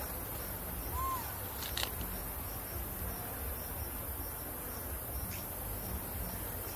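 Steady forest background with insects buzzing and a low rumble, broken by a couple of short, faint high chirps.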